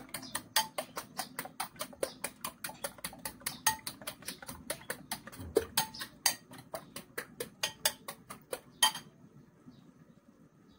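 Eggs being beaten by hand in a bowl: a utensil clicking rapidly and evenly against the bowl, about five strokes a second, stopping about nine seconds in.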